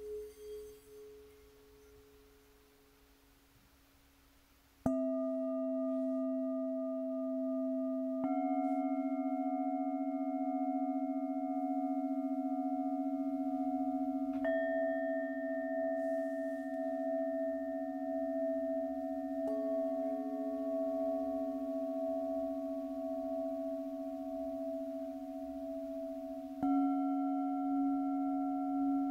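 Singing bowls struck one after another, about five strikes several seconds apart, each ringing on long with a deep hum and higher overlapping tones that waver slowly. A ring from an earlier strike fades away at the start, and the first new strike comes about five seconds in.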